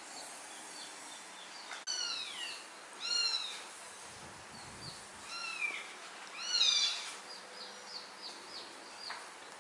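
A small, wet kitten meowing four times as it is towel-dried. The meows are high, each falls in pitch, and they come unevenly over a few seconds, the last one the loudest. Faint short high chirps sound in between.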